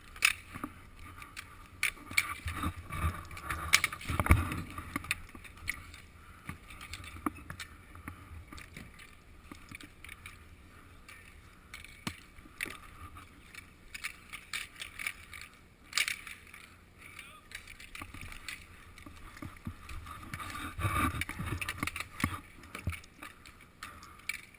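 Roller hockey play heard through a goalie's helmet-mounted GoPro: inline skate wheels rolling on a concrete rink, with scattered sharp clacks of sticks and puck. It is busiest in the first few seconds and again near the end.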